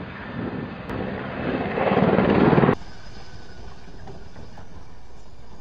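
Helicopter rotor and engine noise that swells louder for about two and a half seconds, then cuts off abruptly to a quieter, steady rumble from a CH-47 Chinook's turning rotors.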